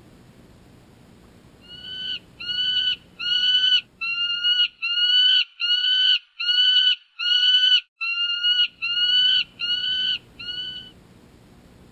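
A bird calling: a series of about thirteen evenly spaced notes, each about half a second long, repeated a little more than once a second, then stopping.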